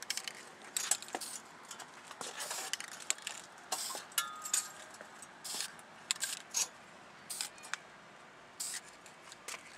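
Aerosol spray-paint can hissing in many short, irregular bursts as paint is sprayed onto a car body panel.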